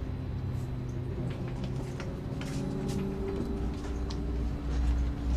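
Inside a moving city bus: the engine's steady low drone with scattered light clicks and rattles, the low rumble growing louder near the end.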